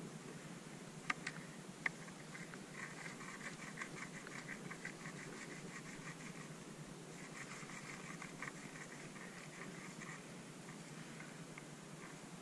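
Skis sliding slowly over crusty, chopped-up snow: faint crackly scraping in two stretches of a few seconds each, with two sharp clicks between one and two seconds in.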